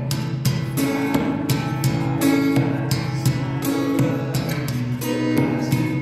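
Music led by acoustic guitar, with plucked notes struck in a steady rhythm about three times a second.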